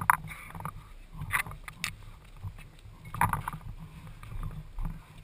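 Footsteps and rustling gear of a person walking, picked up by a body-worn camera, over a steady low rumble of handling noise, with a few short clicks.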